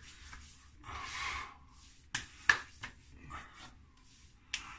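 Hands rubbing an alcohol-based aftershave lotion onto a freshly shaved face, a short soft rub about a second in, followed by a few sharp clicks and taps, the loudest about two and a half seconds in.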